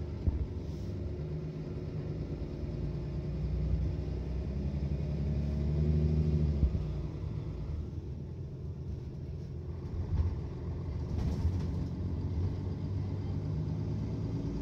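Mercedes-Benz Citaro O530 city bus engine running. Its note rises and grows louder for a couple of seconds, then drops suddenly about six and a half seconds in and runs on steadily.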